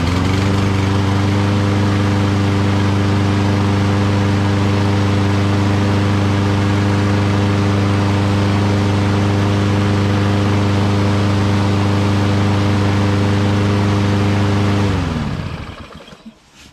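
Kohler XT7 single-cylinder lawn mower engine on a Lawn-Boy Insight walk-behind mower running steadily at a constant speed, then shut off near the end, winding down to a stop.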